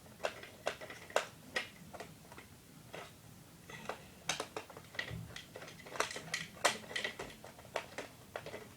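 Irregular light clicks and taps of small plastic and metal toy-robot parts being handled and fitted together, one or two a second.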